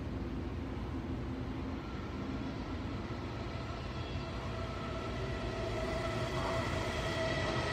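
A train rumbling along. About three seconds in, a train horn begins: several steady notes at once, faint at first and growing louder toward the end.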